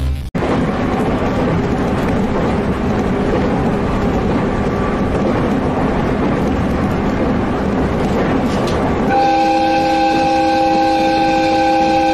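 Steady running noise of a train heard from the driver's cab. About three-quarters of the way in, a train horn sounds one long, steady blast of several tones at once, lasting about three seconds.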